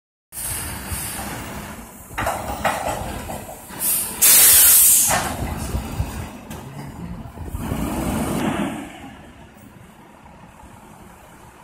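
Front-loading garbage truck's diesel engine running as it lifts and empties a dumpster, with metal bangs around two and five seconds in. A loud air hiss lasts about a second, starting about four seconds in. The engine swells near eight seconds, then settles quieter.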